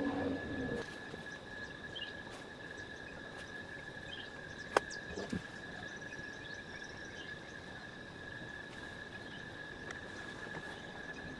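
Insects chirring in a steady, even high drone over faint outdoor hiss, with a single sharp click a little under halfway through.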